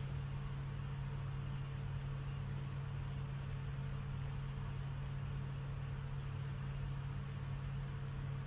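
A steady low hum with an even hiss over it, running unchanged with no other events.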